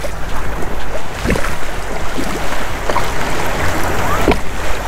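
Fast-moving floodwater rushing and splashing around a plastic sit-on-top kayak, with scattered small splashes and knocks.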